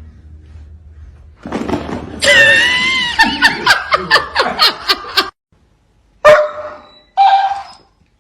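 A person laughing loudly in quick bursts, about four a second, then two short high calls near the end.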